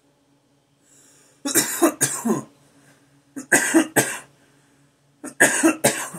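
A man coughing into his elbow from the cannabis smoke he has just inhaled: three fits of two or three coughs each, about two seconds apart.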